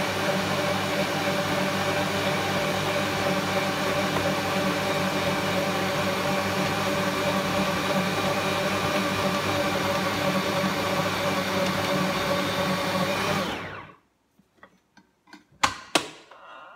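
Stand mixer's motor running steadily as its dough hook kneads a stiff brioche dough, then winding down and stopping about three-quarters of the way through, followed by a few light knocks.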